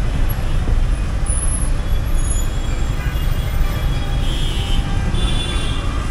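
Suzuki SF motorcycle running at a crawl in slow city traffic, a steady heavy low rumble, with faint horns from surrounding traffic around the middle.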